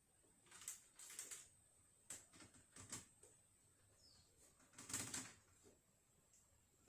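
A few light clicks and knocks, scattered over several seconds, the loudest about five seconds in, over a faint steady high-pitched whine.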